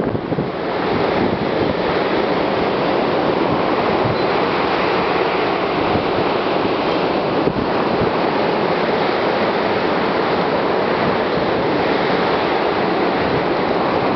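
Storm wind blowing hard through evergreen trees: a loud, steady rush of noise with no letup.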